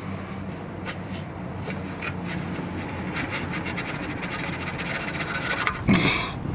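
Scraping and rubbing as the ABS wheel-speed sensor of a BMW 330d is worked loose and pulled out of its bore in the wheel hub, with a single loud knock about six seconds in.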